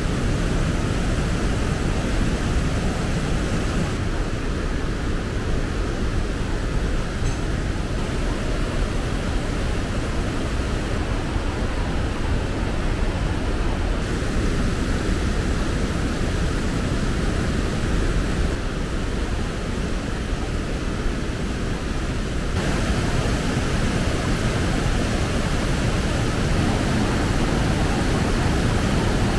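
Urubamba River rushing over rapids: a loud, steady wash of white water, its tone shifting slightly at a few points.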